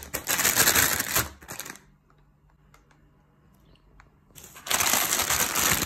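Clear plastic bags crinkling as they are handled and shifted. The crinkling stops about two seconds in, leaving only a few faint ticks, then starts again after about four seconds.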